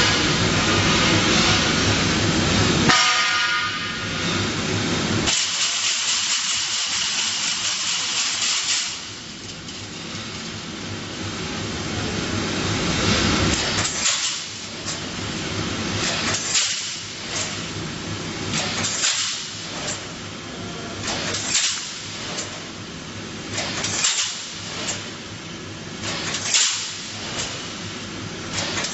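Double-wire mesh fence welding machine running, with a steady hum. About five seconds in there is a loud hiss of air that lasts a few seconds. From about halfway on, the machine works in a regular cycle: a sharp clack with a short hiss about every two and a half seconds.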